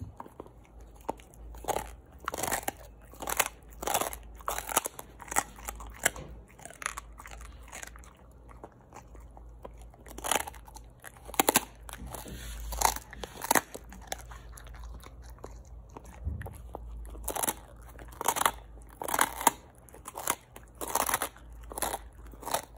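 A large husky crunching and chewing a hard piece of food held between its paws, a few crunches a second, easing off briefly about eight seconds in.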